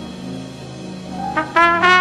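Trumpet playing over a soft band accompaniment: after a quiet stretch, a rising note about a second in, then a loud run of short notes near the end.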